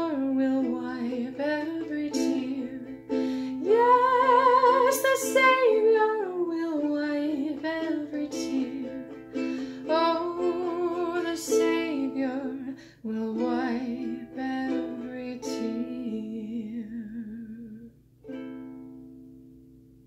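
Ukulele strummed under a woman's slow sung melody with vibrato. The song ends on a final strummed chord about eighteen seconds in, which rings and fades away.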